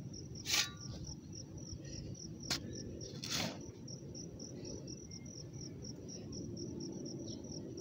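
A shovel scrapes in soil a few times: once about half a second in, with a sharp click at about two and a half seconds and another scrape just after three seconds. Under it an insect chirps steadily in a rapid, even pulse of high notes.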